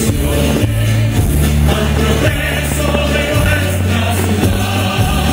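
Music with singing over a held bass line that changes note every second or so.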